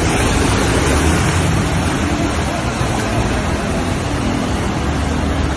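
Steady rushing noise of heavy rain and fast-flowing floodwater on a flooded street.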